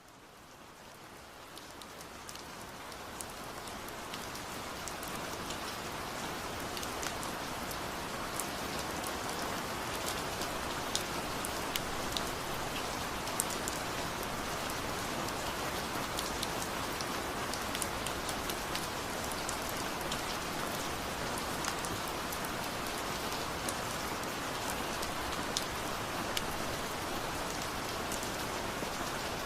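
Steady rush of falling water with many small splashing ticks, fading in over the first few seconds and then holding even.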